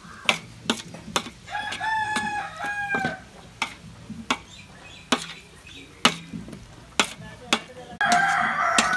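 Metal spoon clinking against a steel plate while mixing prawns into a spice marinade, sharp clicks about once a second. A rooster crows twice, once about two seconds in and again near the end.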